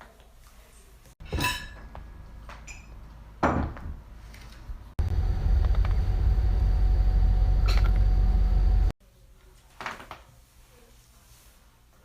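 Neck and back joints cracking under manual adjustment. There is a quick cluster of sharp pops about a second in, a deeper crack at about three and a half seconds, and a single click near the ten-second mark. In between, for about four seconds, a loud low rumble with a faint steady hum runs under one more click.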